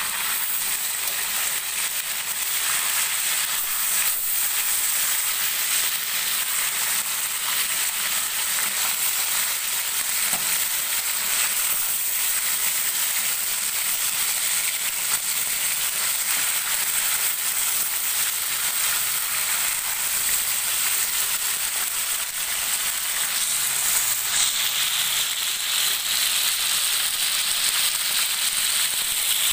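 Marinated chicken pieces frying in hot oil in a wok: a steady sizzle with constant fine crackling spatter, growing brighter and hissier near the end.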